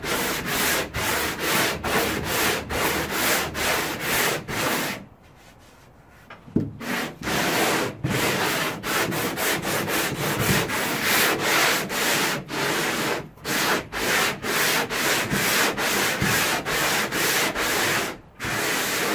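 Homemade wooden longboard sander with coarse 40-grit sandpaper being pushed back and forth over a skim-coated boat hull, rasping in quick, even strokes about three a second. The strokes pause briefly about five seconds in, then pick up again.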